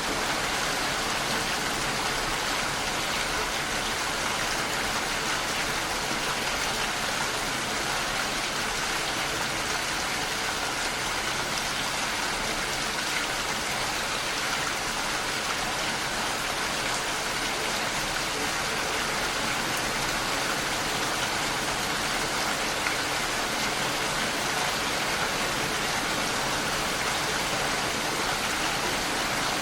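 Steady, heavy rain falling without a break.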